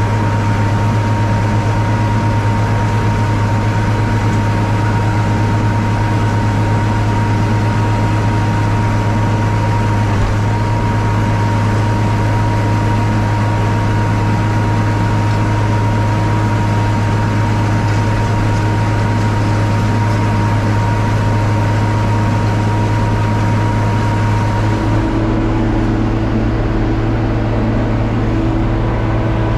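John Deere 4250 tractor's diesel engine and a Kuhn VB 3155 round baler running steadily while baling hay: an even mechanical drone. A steady high whine over it stops about 25 seconds in, and a lower hum takes its place.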